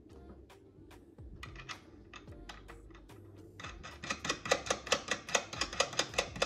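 Light metal clicking as flange nuts are threaded by hand onto the strut top-mount studs, a few scattered clicks and then a fast run of about five clicks a second in the last few seconds.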